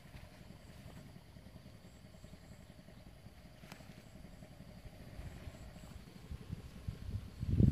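Wind buffeting the microphone outdoors: an uneven low rumble that grows stronger toward the end, with a faint click about three and a half seconds in.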